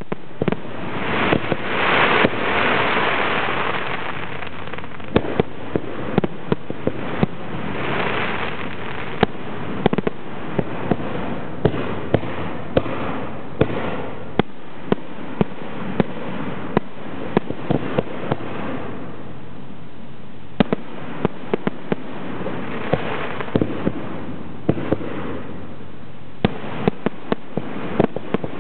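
Zambelli aerial fireworks display: shells launching and bursting in a steady run of sharp bangs, one to several a second. A hissing rush swells up near the start and again around eight seconds in.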